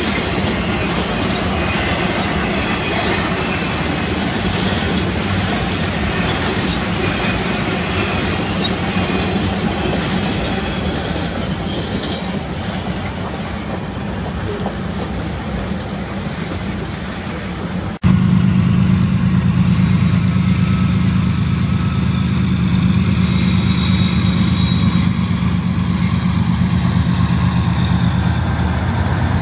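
Freight train of tank cars rolling past with a steady rumble of wheels on rail. After an abrupt cut about two-thirds of the way through, GE diesel locomotives drone close by with a steady low engine note.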